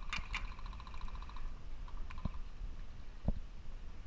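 Airsoft rifle firing a rapid full-auto burst: a fast, even rattle of shots that stops about a second and a half in. Two dull knocks follow later.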